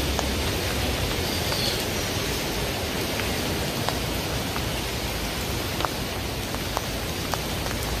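Steady rain hissing on wet pavement and puddles, with scattered single sharp drop taps.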